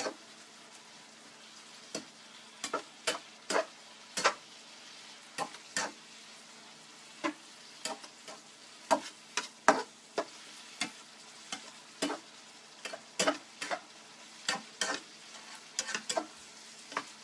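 Spatula knocking and scraping against a frying pan, irregularly about once or twice a second, while stir-frying chopped tempe and seafood. A faint steady sizzle from the pan runs underneath.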